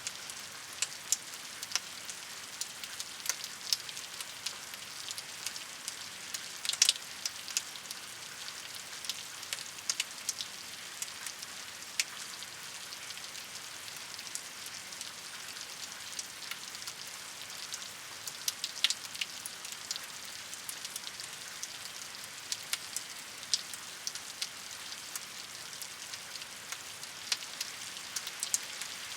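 Steady rainfall: an even hiss with many separate drops ticking sharply on a hard surface, a few louder splats about 7 and 19 seconds in.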